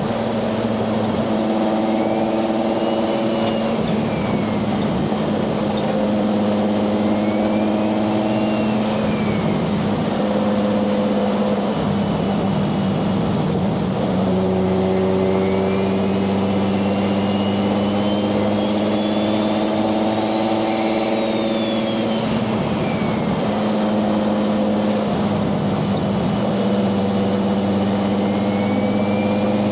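Toyota 1JZ VVTi turbocharged inline-six in a Nissan 240SX running at a steady cruise. A high whistle rises and falls about six times as the turbo spools up and down with the throttle.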